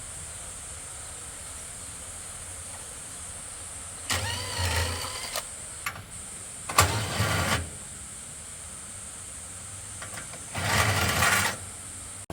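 A motor run in three short bursts of about a second each, over a steady high whine.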